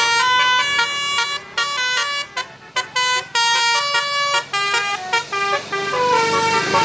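Basuri telolet horn, the multi-tone musical horn fitted to Indonesian buses, playing a quick melody of short notes that step up and down in pitch with brief gaps between them.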